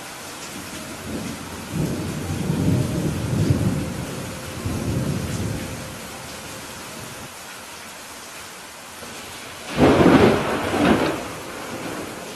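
Steady rain with thunder: a low rolling rumble builds from about a second in and fades by about six seconds, then a louder, sharper clap of thunder comes near ten seconds.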